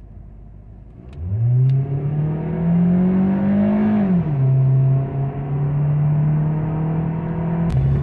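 Car engine heard from inside the cabin, accelerating hard with an automatic gearbox in drive. The revs climb for about three seconds, fall at an upshift about four seconds in, then hold steady, with another shift and fresh climb near the end.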